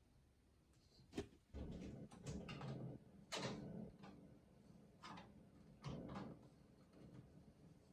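Faint handling sounds of shower plumbing fittings: a sharp click about a second in, then several short scraping and rustling bursts while the threaded parts are worked by hand.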